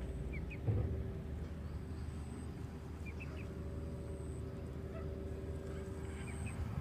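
Outdoor ambience: a steady low rumble and a faint steady hum, with a quick pair of small bird chirps three times.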